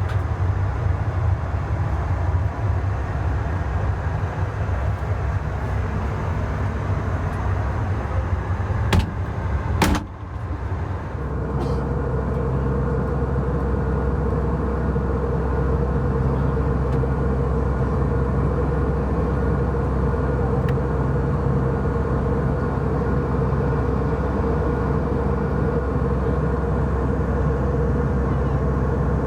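Steady low rumble of cabin noise aboard an Airbus A319-100. About nine and ten seconds in come two sharp knocks and a brief drop. After that it goes on as a steadier rumble with a humming tone.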